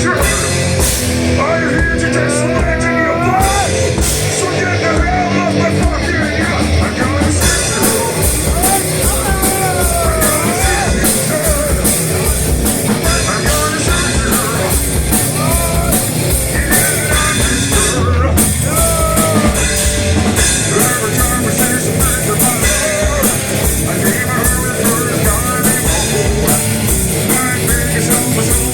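Stoner rock band playing live: a loud, steady song on amplified instruments and drum kit, with cymbals filling in the top from about seven seconds in.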